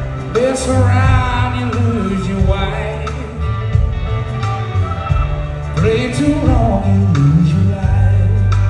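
Live band playing a slow bluesy country-soul groove, with electric guitar, bass and congas. A held lead note bends and wavers in pitch twice, once near the start and again about six seconds in, over a steady bass line.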